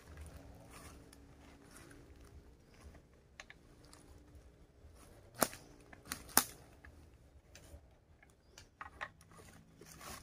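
Stopped chainsaw being filled from a fuel can: quiet handling noises, with two sharp clicks about a second apart near the middle, over a faint steady hum.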